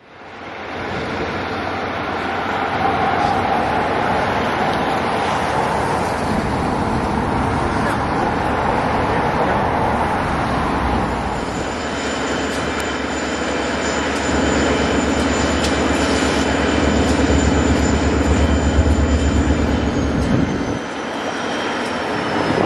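Diesel engine of an EMD GP-series road-switcher locomotive running as the work train creeps along, a steady low drone with a thin high whine that falls slightly in pitch near the end. The first half holds a loud, even rushing noise before the engine drone takes over.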